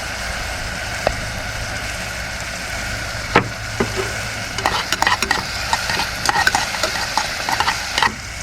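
Chopped onion, celery and bell pepper sizzling steadily in melted butter in a pan. From about halfway through, a utensil stirs them, clicking and scraping against the pan.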